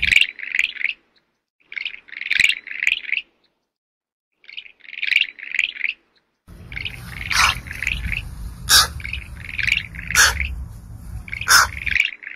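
Clusters of quick, high-pitched chirping calls, several in a row, broken by sharp clicks. The clusters stop abruptly into silence several times, as if cut. A low rumbling noise runs under the calls through the second half.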